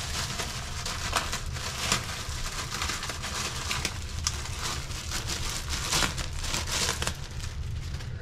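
Crinkling and rustling of plastic packaging being handled, with many small crackles and ticks.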